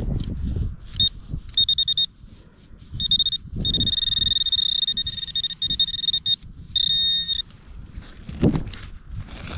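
Metal detector sounding a high, steady target tone on buried metal: a few short beeps, then one long tone of nearly three seconds, then another short beep. Beneath it are thuds and rustling from digging in the soil.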